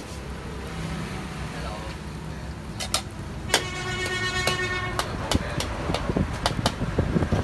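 A vehicle horn sounds once, held for about a second and a half midway, over a steady low rumble with scattered pops and crackles from bánh xèo batter frying in lard in aluminium pans.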